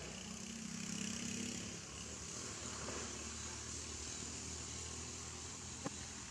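A steady low hum under an even hiss, with one sharp click near the end.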